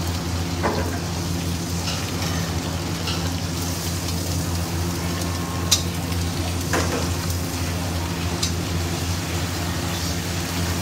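River prawns sizzling as they shallow-fry in oil in a steel kadai, with a metal spatula clicking and scraping against the pan a few times as they are turned. A steady low hum runs underneath.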